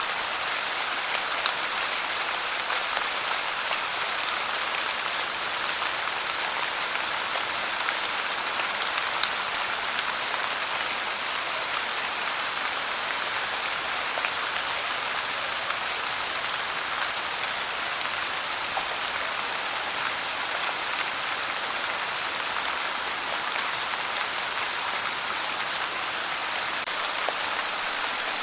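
Steady rain falling and pattering on a surface, an even hiss with small drop ticks and no change in strength.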